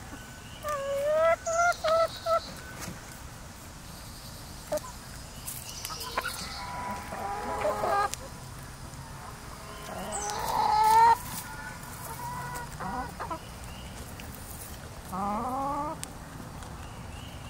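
Backyard hens clucking and calling as they feed: a quick run of short clucks about a second in, then several separate calls, the loudest a little past the middle and a rising call near the end.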